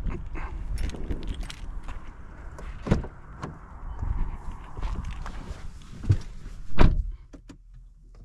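Footsteps and rustling as someone walks up to a car, a click about three seconds in as the driver's door of a BMW M3 F80 is opened, and the door shut with a heavy thud near the end.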